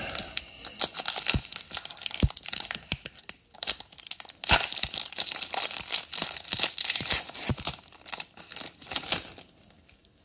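Foil wrapper of a Pokémon card booster pack being torn open and crinkled by hand: a dense run of crackling rips that stops about nine seconds in.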